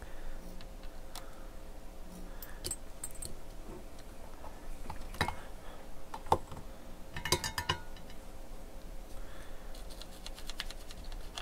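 Scattered light clicks and scrapes of a small hand tool picking corrosion and old solder off a water-damaged amplifier circuit board, with a quick cluster of clicks about seven seconds in. A faint steady hum runs underneath.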